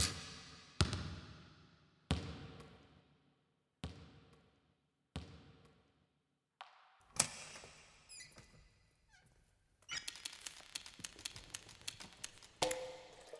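A series of foley knocks and thunks, single hits spaced a second or two apart, each ringing out and fading, followed near the end by a quick rattling run of many small clicks.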